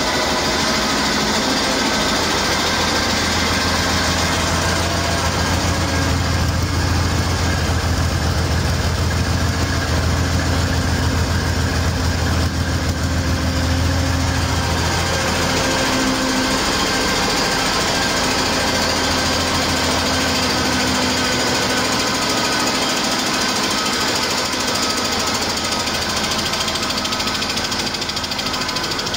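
2004 Cummins ISX EGR inline-six turbo diesel running steadily on a test stand, with a hard diesel clatter. Its low drone eases about halfway through.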